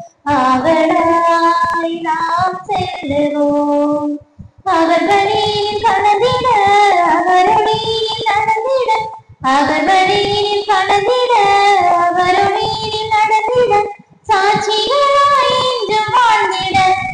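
High voices singing a church hymn in phrases of about four to five seconds, each followed by a brief pause for breath.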